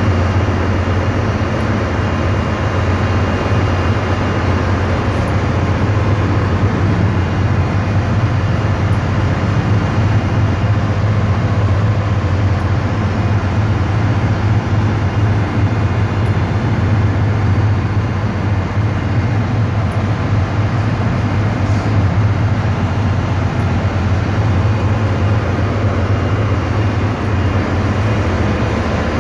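Ship's engine-room machinery noise, loud and steady: a constant low drone with a rushing hiss over it.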